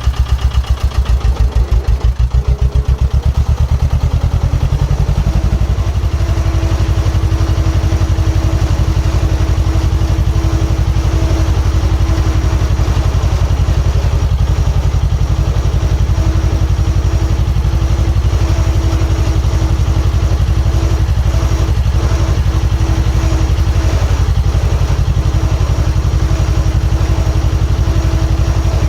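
Diesel engine of construction plant running close by. It pulses at a slow, even beat for the first few seconds, then runs steadier with a steady whine from about five seconds in.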